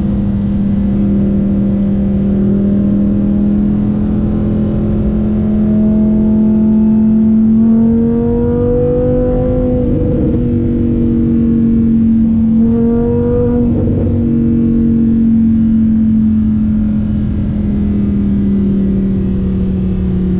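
Lamborghini Huracán Performante's naturally aspirated 5.2-litre V10 pulling steadily in fifth gear, heard from inside the cabin. The engine note climbs gently as the car gathers speed, is loudest about halfway through, then drops slowly as it eases off near the end.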